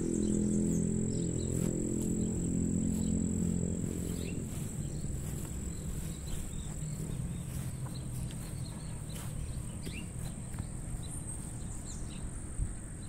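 Outdoor ambience: a steady high-pitched insect trill over a low rumble that fades after the first few seconds.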